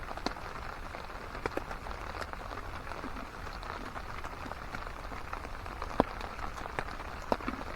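Steady rain falling, an even hiss with scattered sharp drip ticks; one louder click about six seconds in.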